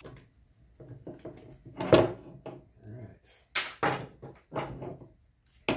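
Handling knocks and clicks as the front faceplate of a homemade annealing machine's enclosure is unscrewed and pulled out, a screwdriver working the panel. A sharp knock about two seconds in is the loudest, followed by several lighter knocks.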